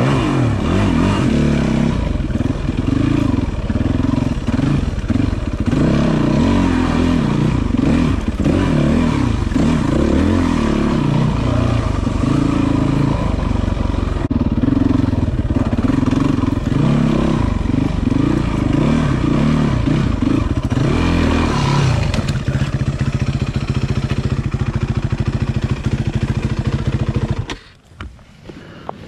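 Yamaha WR450F's 450 cc single-cylinder four-stroke engine revving up and down as the dirt bike climbs a rough trail, then running lower and steadier. It cuts out suddenly near the end as the bike falls over and stalls.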